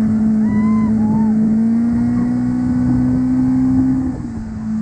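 Motorboat engine running steadily at speed. Its pitch rises slightly, then drops and eases off about four seconds in, with wind and water rush underneath.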